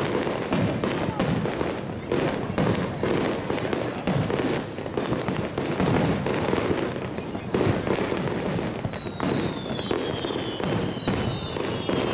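Aerial fireworks going off in quick succession, a dense run of bangs and crackling. Several whistling tones that fall slowly in pitch come in about two-thirds of the way through.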